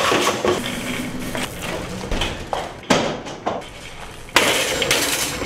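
Crashing, clattering impacts of a computer thrown down a stairwell. Near the end comes a noisy rattle, like a shopping cart's wheels rolling over pavement.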